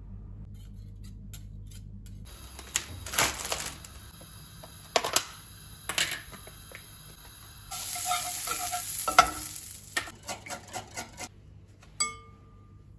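A wire whisk and spoon clinking against a glass mixing bowl in a run of sharp clinks, with margarine sizzling as it melts in a nonstick frying pan, loudest about eight to nine seconds in. One ringing clink on the glass bowl near the end.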